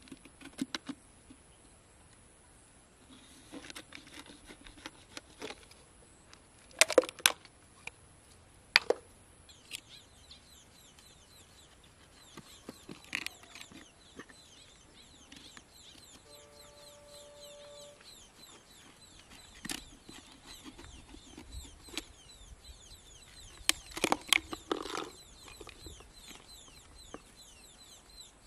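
Knife blade scraping and clicking against a freshwater mussel shell as it is pried open, in a few clusters of sharp clicks and knocks, the loudest near the end. Faint high chirping runs behind from about a third of the way in.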